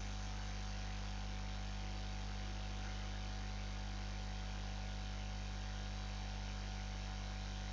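Steady low electrical hum with a faint hiss under it, the mains hum and noise of the recording setup.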